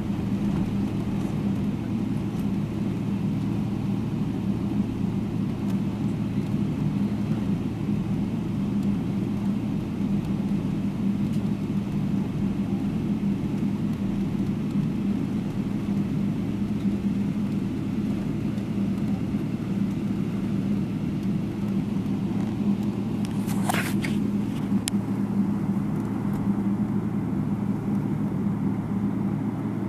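Steady airliner cabin noise as the plane taxis: the engines' low, even drone with a constant hum. A brief high falling squeak comes near the end.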